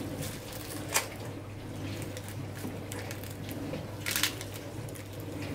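A fork cutting through crisp puff pastry and soft mascarpone cream, with a sharp click about a second in and a short crunchy crackle near the end, over a steady low hum.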